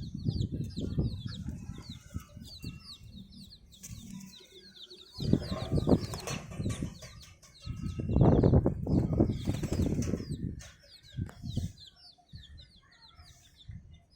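Baby chicks peeping in a steady run of rapid, high chirps, with loud bursts of wing flapping about five seconds in and again about eight to ten seconds in.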